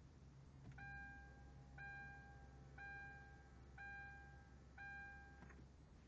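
Car's electronic warning chime beeping five times, about once a second, each tone held for most of a second, over a faint low hum, in a Hyundai Genesis Coupe that will not start.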